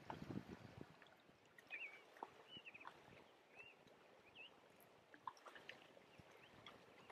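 Near silence: the faint wash of a shallow river, with a few short bird chirps a couple of seconds in.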